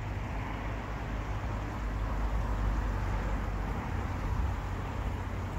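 Steady outdoor ambience: a low rumble with an even hiss over it and no distinct events.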